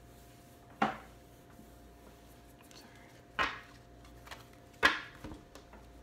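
Three short handling noises, knocks and rustles of things moved on a table, about a second, three and a half and five seconds in, over a faint steady hum.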